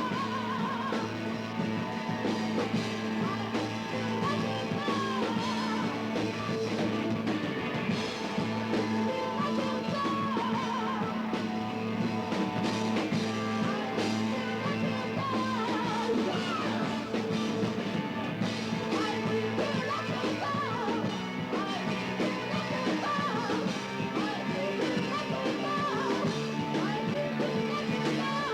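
Live rock band playing at a steady loud level: electric guitars, bass and drums, with held low chords and a wavering melodic line above them.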